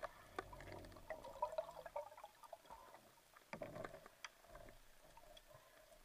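Faint underwater sound recorded through a camera housing: scattered clicks and crackles over a low hiss, with a brief louder rush of water noise about three and a half seconds in.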